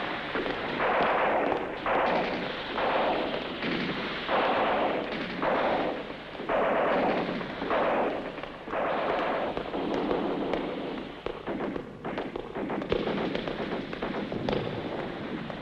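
Gunfire on a film soundtrack: repeated bursts about once a second, thinning out over the last few seconds.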